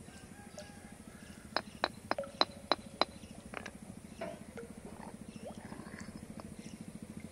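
Concrete interlocking paver blocks clinking against one another as they are set into place: a quick run of about seven sharp clicks, then a softer knock, over a faint steady low hum.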